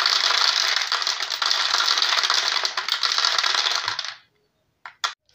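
Dried black-eyed beans poured by hand into a plastic bottle: a dense, continuous rattle of beans striking the plastic and each other, cutting off abruptly about four seconds in. Two short clicks follow near the end.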